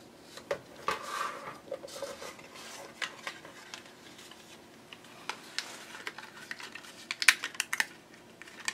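Hands taking apart a die-cutting sandwich: plastic cutting plates lifted and set down with light clicks and clacks, and cardstock rustling as it is handled. A quick run of sharp clicks comes near the end as the cut cardstock and thin metal dies are handled.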